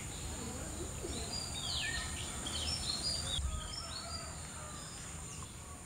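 Several wild birds chirping and calling: a string of short whistled notes, many sliding downward, over steady outdoor background noise with a faint high hiss.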